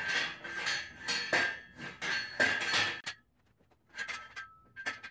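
Power rack safety pins being slid through and seated in the holes of the rack's uprights: a run of metal-on-metal clanks and scrapes with a ringing tone. The clanks stop about three seconds in and start again near the end.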